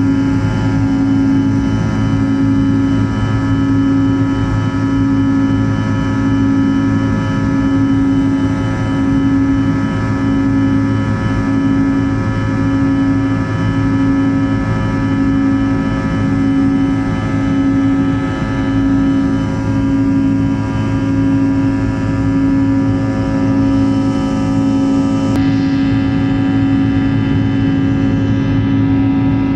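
Airliner jet engines droning steadily as heard inside the passenger cabin, with a low hum that swells and fades about once a second, the beat of two engines running at slightly different speeds.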